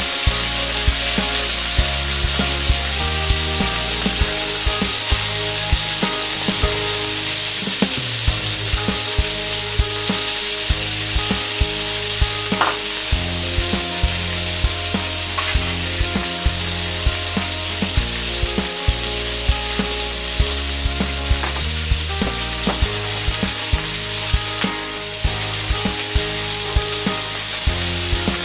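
Pork pieces frying in a wok, a steady sizzling hiss, under background music with a steady beat.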